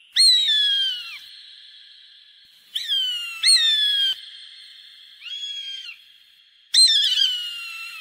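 A hawk giving sharp, downslurred whistled calls, each about a second long and falling in pitch. There are about five calls, two close together around three seconds in and a fainter one past the middle.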